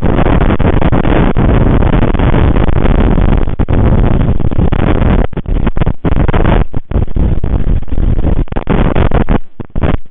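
Storm wind buffeting a nest livecam's microphone: a loud, steady rushing rumble that cuts out abruptly for a moment several times.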